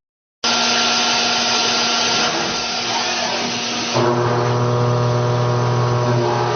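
CNC machine running while cutting a gear, a steady hiss with several steady humming tones; about four seconds in, a stronger low hum and more tones set in.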